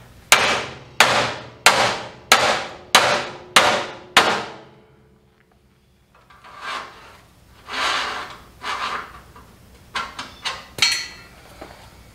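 Sledgehammer striking the old steel center crossmember of a Chevy C10 frame to drive it out: seven heavy metal blows about two-thirds of a second apart, each ringing briefly. After a pause come softer scraping knocks of metal, then a short metallic clink near the end.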